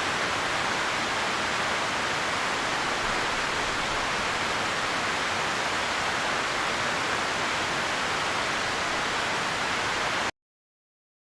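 Steady, even rushing noise with no birdsong in it, cutting off suddenly about ten seconds in.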